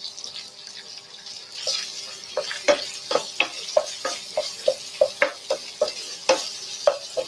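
Eggs sizzling in a frying pan with chili paste and prawns; from about two seconds in, a spatula knocks and scrapes against the pan roughly twice a second as the egg is stirred.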